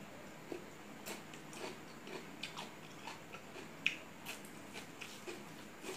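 Close-up eating sounds: mouth smacks and small wet clicks while chewing a handful of rice, irregular, with one sharper click about four seconds in.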